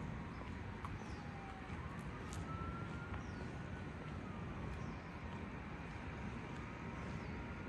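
Steady low outdoor rumble with a faint siren slowly wailing down and up, each sweep lasting a couple of seconds.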